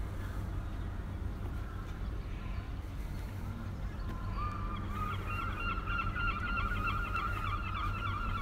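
A bird calling in a rapid, chattering run of short repeated notes, starting about halfway through, over a low steady rumble.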